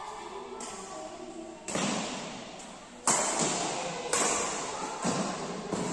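Badminton racket strings striking a shuttlecock during a rally: six sharp hits about a second apart, each ringing on with a long echo in a large metal-walled hall.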